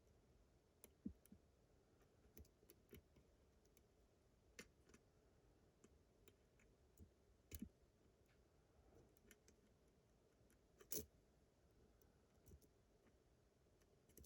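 Abus GDS lock being picked: faint, irregular clicks from the pick working inside the lock, about a dozen in all, the loudest a sharp click a little after the middle.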